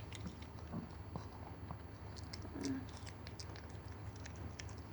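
Faint wet licking and chewing clicks from a mother dog tending her newborn puppies, with a brief faint low sound about two and a half seconds in.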